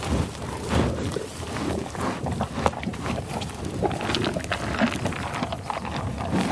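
American bison grazing: irregular crunching and tearing of grass with snuffling breaths.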